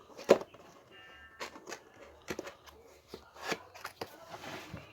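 Handling noises: a series of sharp clicks and knocks, the loudest about a third of a second in, then a brief rustle near the end.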